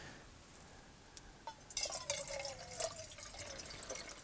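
Water pouring from a bottle. About a second and a half in, a gurgle starts whose pitch falls steadily, with small crackles over it.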